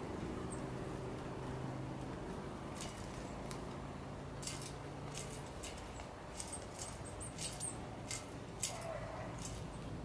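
Irregular sharp clicks and taps of small birds feeding at a metal-mesh seed feeder, pecking seed and gripping the metal perches. A low steady hum sits underneath and stops about halfway through.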